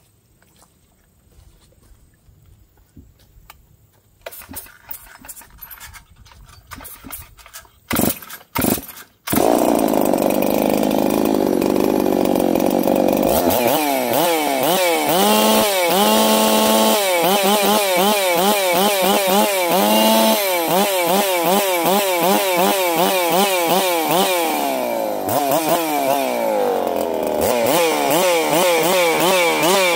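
G660 two-stroke chainsaw (a Stihl MS660 clone), freshly rebuilt, being started: faint handling clicks, two short loud pulls, and the engine catches about nine seconds in. It runs steadily for a few seconds, then is revved up and down repeatedly.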